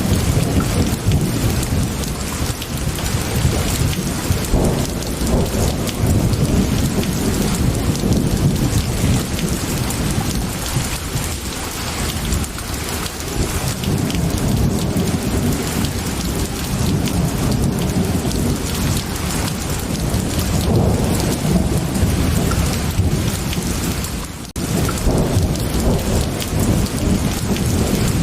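Heavy, steady rain with a continuous low thunder rumble, mixed with a crackling wood fire. The sound briefly drops away once, near the end.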